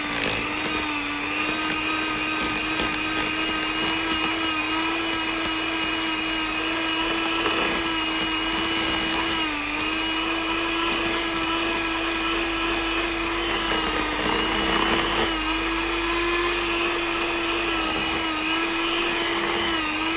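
Handheld electric hand mixer whipping thick body cream in a plastic tub. The motor runs with a steady whine, and its pitch dips briefly a few times.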